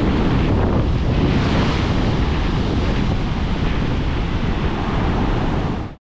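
Ocean surf breaking during a king tide, with heavy wind noise on the microphone. The sound cuts off suddenly near the end.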